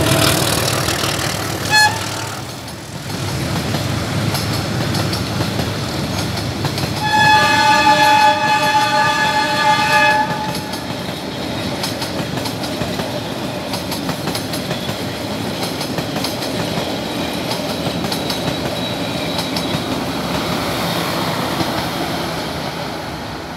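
Empty passenger coaches rolling past on the track, with a steady rumble and clatter of wheels. A short horn toot comes near 2 seconds, and about 7 seconds in the D13E diesel locomotive's horn sounds one long chord of about three and a half seconds. This is the horn as it sounds after being fixed.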